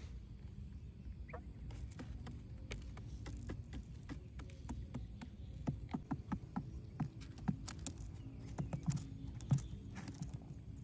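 Irregular light taps and clicks, coming thicker and louder in the second half, with one brief high chirp about a second in.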